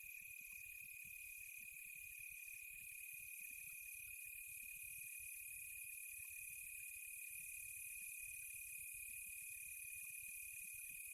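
A steady chorus of insects, cricket-like, with a constant high-pitched trill and a fainter higher hiss that never pause, over a faint low fluttering rumble.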